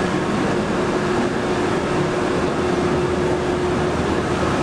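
Steady running noise of gas-fired heat-treating furnaces and their blowers, with a constant hum tone through it.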